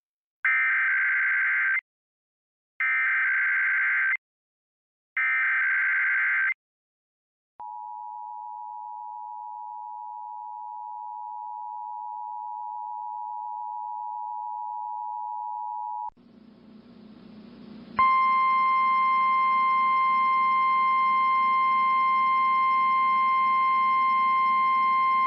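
Emergency Alert System test tones: three short bursts of warbling SAME digital header data, then the two-pitch EAS attention signal held steady for about eight seconds and growing slightly louder. After a moment of receiver hiss, the single-pitch NOAA Weather Radio warning alarm tone starts about 18 seconds in and holds steady.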